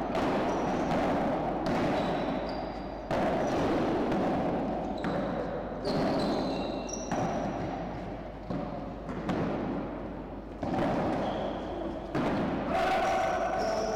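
Padel rally: the ball struck by solid paddles and bouncing off the court and walls, about ten sharp pops a second or so apart, each ringing on in the hall. Short high squeaks of shoes on the court come between the hits.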